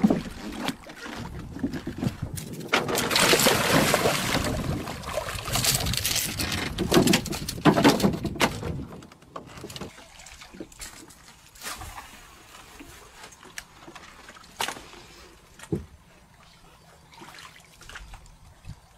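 Water splashing and dribbling around a fishing lure pulled up at the surface for about the first nine seconds, then much quieter with a few scattered sharp knocks and clicks.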